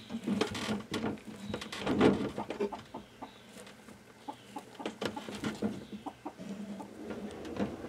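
Chickens clucking while a hand rustles and crackles through dry hay and fur lining in a rabbit nesting box.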